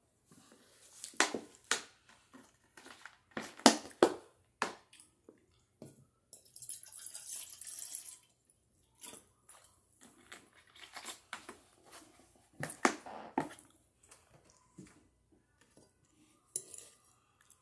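Close-miked eating sounds: scattered clicks and knocks of a fork against a plate along with chewing. Halfway through comes about two seconds of steady hissing as soda is drunk from a cup.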